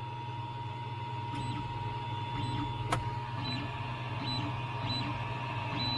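Creality Ender 3's Y-axis stepper motor jogging the print bed in short repeated moves over the printer's steady hum, with one sharp click about halfway through. The bed moves freely on its newly replaced Y belt.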